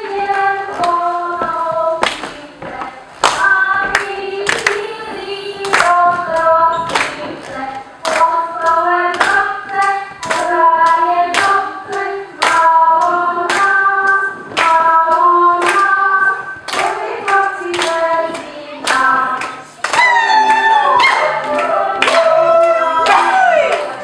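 A lively Czech–Slovak folk dance song sung by a group, with sharp hand claps keeping the beat.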